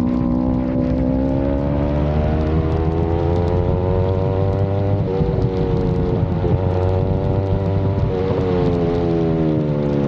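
Yamaha MT-03 motorcycle engine running steadily, its pitch rising slowly for the first few seconds, holding with a few brief blips, then falling away near the end.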